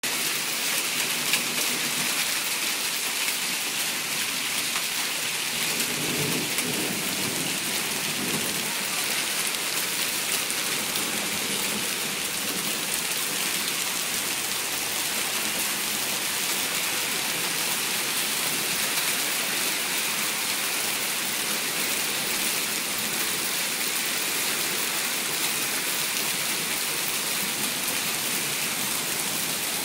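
Hail and rain pelting down hard: a steady, dense hiss full of small ticks. A low rumble of thunder rolls in about six seconds in and fades by about eight seconds.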